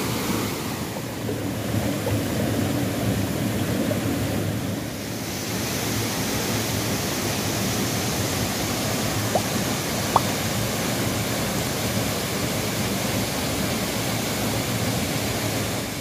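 Steady rush of small waterfalls pouring into a rocky pool. Two brief high peeps sound a little past halfway.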